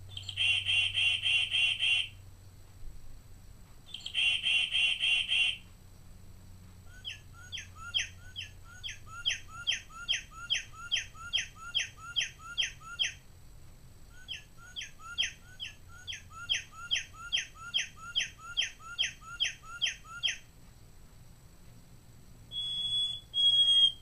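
Mark Feldstein 8-inch singing bird clock playing its recorded bird songs one after another. First comes a rapid trilled song, twice. Then a long series of quick slurred whistles, about three a second, in two runs. Near the end come two short clear whistles.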